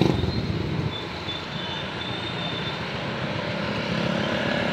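A motor vehicle engine running steadily, its drone growing gradually louder over the last few seconds.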